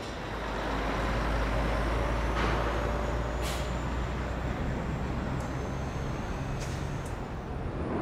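Heavy truck's diesel engine running with a steady low rumble, with a few short hisses of compressed air; the rumble fades near the end.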